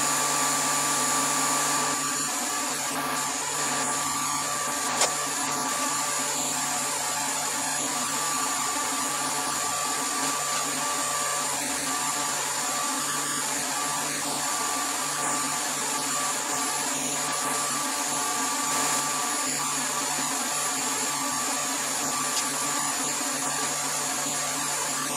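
Small electric vacuum pump running steadily, a constant hum with a high whine, pulling vacuum on the bagged laminate to draw epoxy resin through it during vacuum infusion. A single click sounds about five seconds in.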